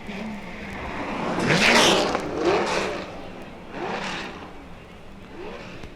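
1964 Le Mans racing cars passing at speed one after another, each engine swelling and fading as it goes by; the loudest pass comes about two seconds in and another shortly after four seconds.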